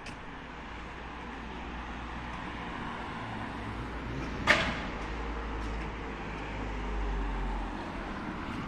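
City street traffic with a low rumble that swells a few seconds in, as of a vehicle passing, and wind on the microphone. A single sharp knock about halfway through is the loudest sound.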